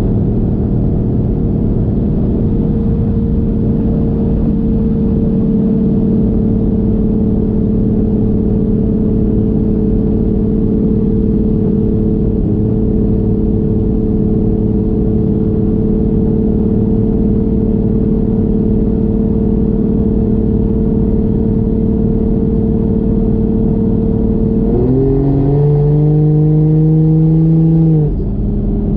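1JZ inline-six engine in a Fox-body Mustang cruising at a steady engine speed with a steady drone. About 25 seconds in it picks up under throttle, revving higher for about three seconds, then drops off suddenly near the end as the throttle is released.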